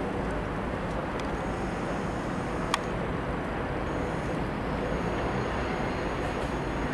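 Steady rushing of wind on the camera microphone, with one sharp click near the middle.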